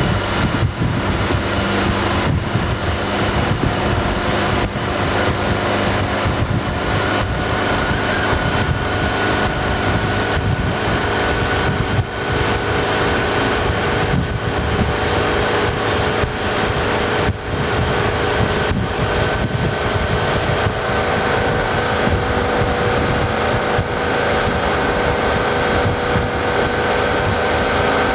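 Motorboat engine running at a steady speed while towing a water skier, with wind buffeting the microphone. The engine's pitch creeps up slightly about a third of the way in.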